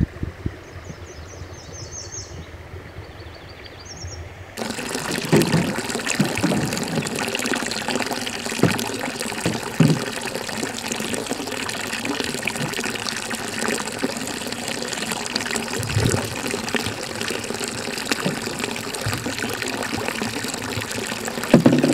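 Steady stream of water spouting from the end of a black pipe and splashing into a river. It starts abruptly about four and a half seconds in, with a few low bumps. Before that there are only faint bird chirps.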